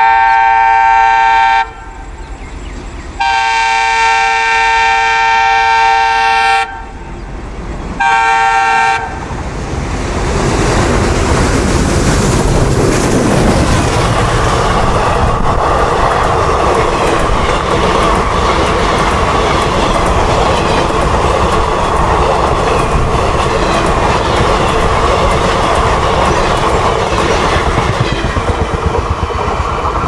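Diesel locomotive horn sounding a chord of several notes in three blasts: a long one, a longer one, then a short one about eight seconds in. Then the train runs past at speed, with a loud rumble and steady wheel clatter over the rail joints.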